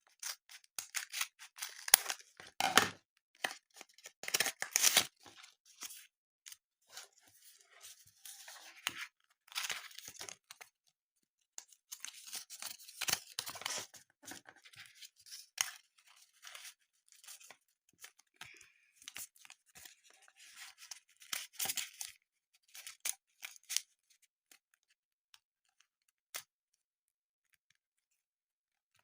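Blind-bag packaging being torn open and handled: irregular bursts of tearing and rustling with sharp clicks, dying away to a few isolated clicks near the end.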